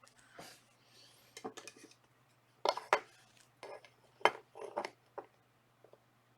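Trading cards and plastic card holders being handled: a scattered run of light clicks and short rustles, the loudest a pair a little under three seconds in and another about four seconds in.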